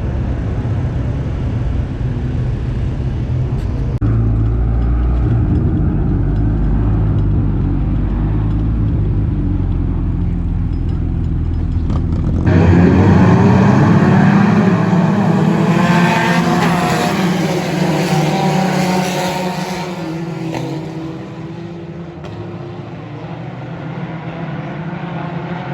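Hornet-class race cars running on a dirt oval, several engines at once. Near the middle the engines grow louder, with pitches rising and falling as cars pass, then ease off near the end.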